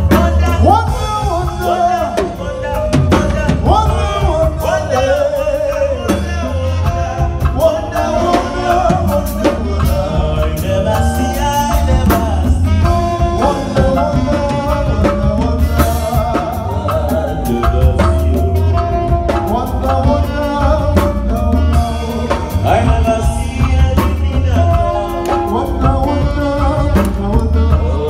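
Live band playing: electric guitar, bass guitar, drum kit and keyboard, with a heavy bass line under a steady drum beat and a wavering melodic lead line.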